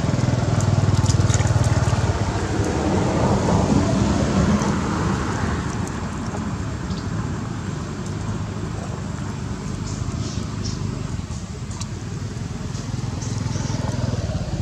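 Steady low rumbling noise, loudest in the first few seconds and easing after, with small splashes and clicks of water as a baby macaque plays in a shallow muddy pond.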